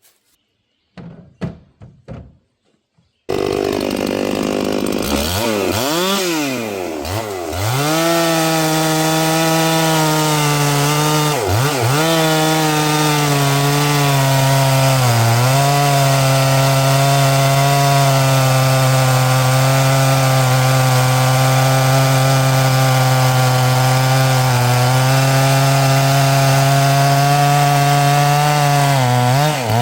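Two-stroke gas chainsaw running at full throttle while cutting an oak log. It comes in suddenly after a few seconds of quiet and faint knocks, its pitch swings up and down a few times, then it holds a steady pitch under load with brief dips.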